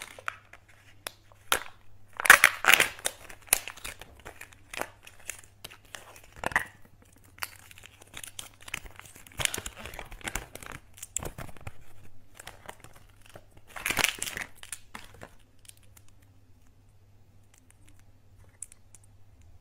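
Kinder Joy egg packaging being peeled and unwrapped by hand: irregular bursts of crinkling and tearing plastic and foil, loudest early on and again about three-quarters through. It then drops away to a few faint clicks as small plastic toy pieces are handled.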